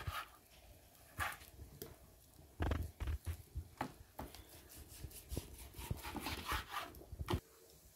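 Large kitchen knife cutting pork fat into cubes on a wooden cutting board: irregular knocks of the blade striking the board, with short slicing and scraping sounds between them.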